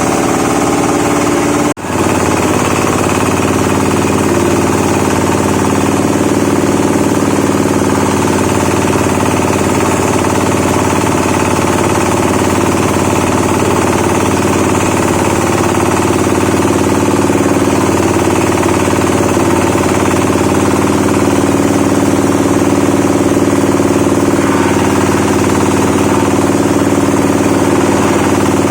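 Branch shredder (wood chipper) running steadily and loudly, its motor and cutting drum making a continuous mechanical drone, with a brief break about two seconds in.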